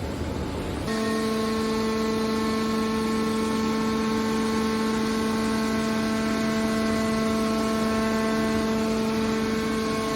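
Metal recycling press baler running, a steady machine hum with several fixed tones that comes in about a second in and holds over a noisy background.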